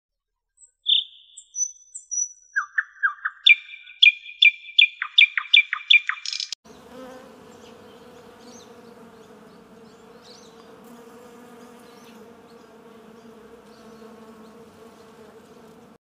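A bird chirping in a quick run of sharp, repeated high notes for the first six seconds, then an abrupt switch to the steady buzz of many honeybees working a flower.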